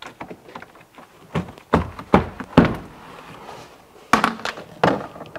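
Several irregular knocks and thunks from hands and tools working on a car boot's interior trim panels, the loudest around two and four seconds in.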